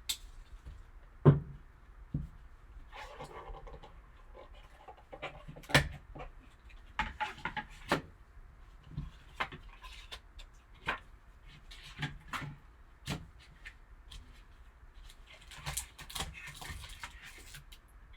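Irregular clicks, taps and rustles of a trading-card box and its packaging being handled and opened, by hand.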